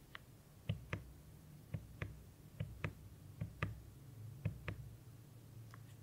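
Single keys on a Satisfaction 75 custom keyboard with Everglide Aqua King V3 linear switches, pressed one at a time. About five presses are heard, each as a bottom-out clack followed a quarter second later by the return clack.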